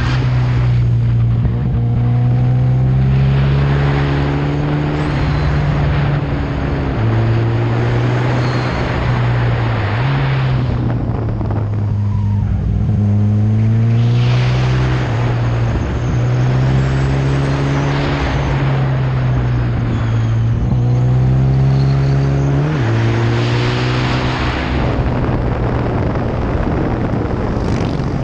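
Kawasaki ZX-14R inline-four engine running under a rider's throttle through a run of curves, its pitch rising and falling, with several sudden drops in pitch as gears change. Rushing wind on the microphone swells and fades with speed.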